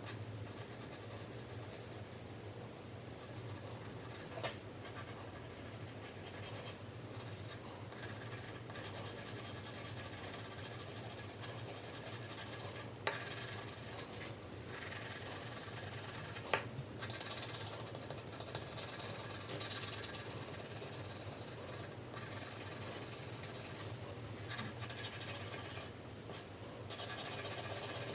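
4B graphite pencil shading on paper: continuous scratchy strokes, broken by a few short pauses, with three sharp clicks along the way.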